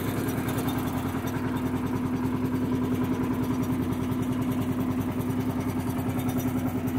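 Sonalika 30x18 multicrop thresher running at a steady speed while threshing paddy, driven by a power tiller's diesel engine. A steady hum sits over the engine's fast, regular pulsing.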